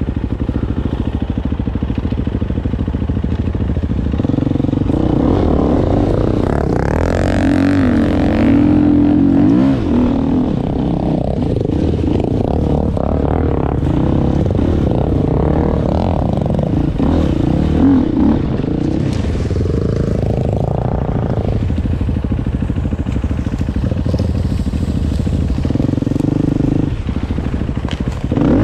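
Motorcycle engine running while under way, its pitch rising and falling several times with the throttle.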